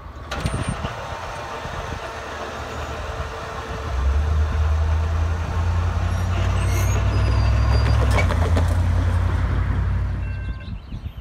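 A vehicle running close by: a low engine rumble that swells about four seconds in, holds steady, and fades near the end.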